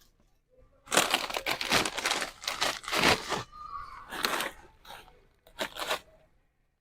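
Pop-it snappers going off: a rapid, dense run of sharp crackling snaps for about two and a half seconds, then a few shorter clusters of snaps.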